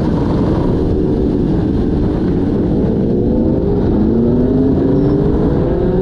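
Motorcycle engine running under way with heavy wind buffeting on the microphone; through the second half the engine note rises steadily as it accelerates.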